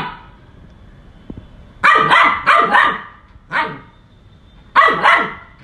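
Maltese puppy barking in short, sharp barks. After a brief lull they come about two seconds in as a quick run of four, then a single bark, then two more near the end.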